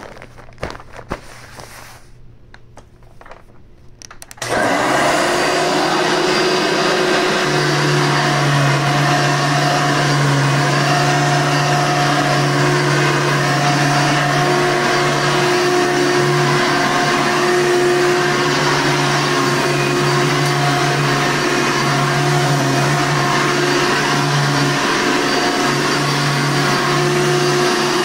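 Red Hoover Encore Supreme upright vacuum cleaner switched on after a few clicks about four seconds in, then running steadily with a loud, even hum and whine while pushed over carpet.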